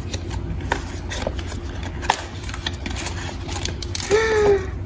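Small cardboard box being opened by hand: scattered light clicks and scrapes of the paperboard flap and paper insert, with a short vocal sound near the end.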